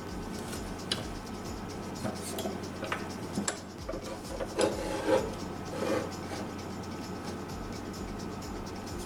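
Scattered light clicks, knocks and rubbing from handling the metal parts of a DeWALT 14-inch chop saw, over a steady low hum.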